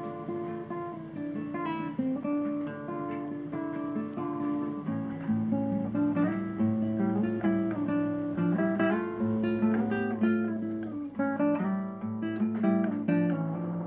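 Background music led by acoustic guitar, plucked and strummed.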